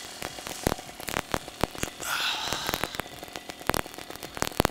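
Irregular crackling and sharp clicks from wind and handling noise on a GoPro's microphone, the kind of poor camera audio the pilot complains of. A brief hiss comes about two seconds in.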